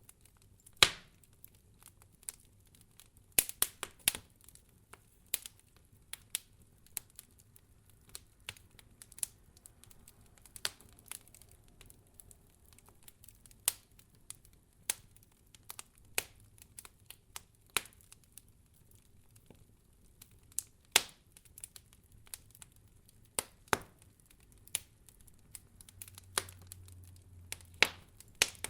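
Wood fire crackling: irregular sharp pops and snaps, a few louder cracks among many small ones, over a faint low hiss.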